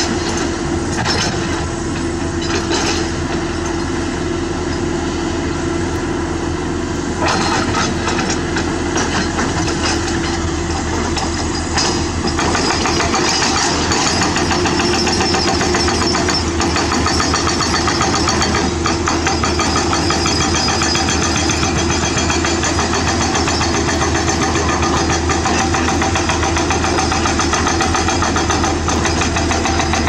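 Hydraulic rock breaker on a CAT 320D excavator hammering rock in fast, continuous blows, over the steady run of the excavator's diesel engine. The hammering grows denser and louder about twelve seconds in.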